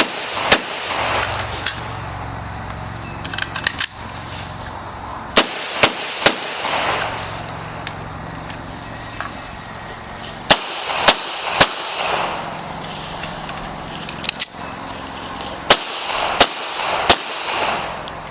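Gunshots from a Daniel Defense DDM4V1 AR-15 rifle and a Beretta M9A4 9 mm pistol: one shot about half a second in, then three strings of three shots about half a second apart, with roughly four seconds between strings, each shot trailed by a short echo. A few light clicks come just before four seconds in.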